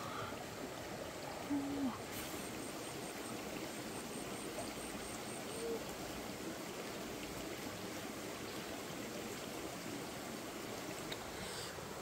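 Steady jungle ambience, a constant even hiss. A short low tone sounds about one and a half seconds in and a higher one near six seconds. Between about two and six seconds there is a rapid series of faint high ticks, about six a second.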